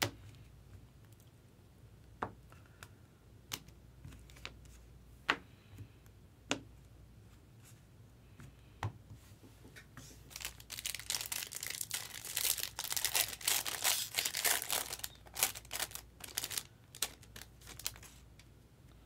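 A few scattered sharp clicks and taps of handling, then, about ten seconds in, several seconds of loud crinkling and tearing as a foil-wrapped trading card pack is torn open.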